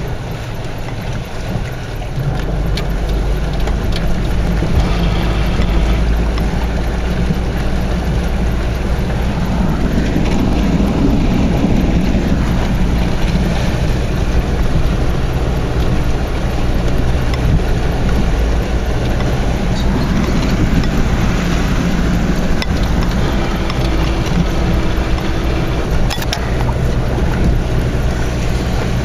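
Land Rover Discovery 2's Td5 five-cylinder turbodiesel running steadily under load while wading through floodwater, heard from inside the cabin, with water washing along the body. The engine note swells about a third of the way in and again about two-thirds through.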